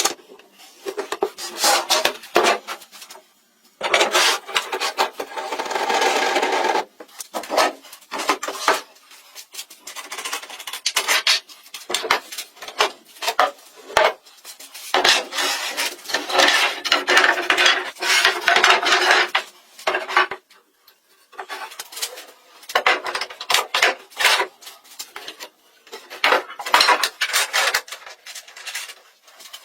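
Hand work on wood: irregular knocks and clinks of tools, with longer stretches of scraping or rasping.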